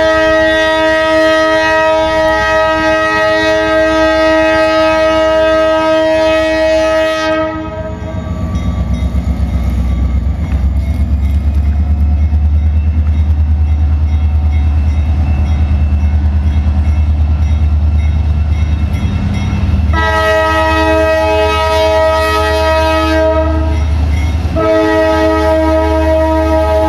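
Diesel-electric locomotive CEFX 3123 blowing its air horn, a chord of several notes held in a long blast. After that blast, the locomotive's diesel engine runs with a loud, low, pulsing rumble as it approaches. About twenty seconds in, the horn sounds a second long blast, then breaks briefly and starts a third blast near the end, with the engine still running beneath.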